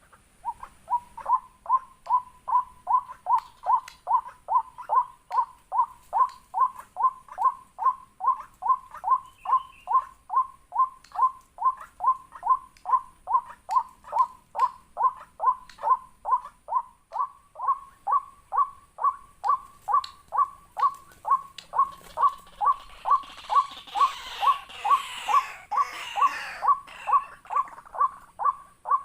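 Waterhen calling: a steady series of short, slightly falling notes, about two a second. Near the end a harsher chattering joins in over the calls for a few seconds.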